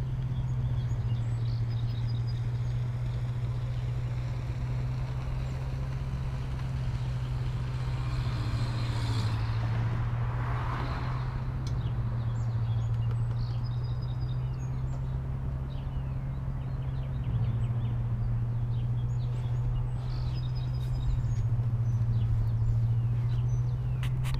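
Small gasoline engine of a 52-inch commercial walk-behind mower running at a steady speed, a constant low hum, freshly serviced with new oil and filters. A short swell of hiss comes through about ten seconds in.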